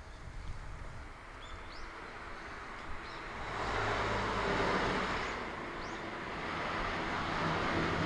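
Outdoor ambience: a few short, rising bird chirps, then a steady rushing noise with a low hum that swells up about halfway through and holds.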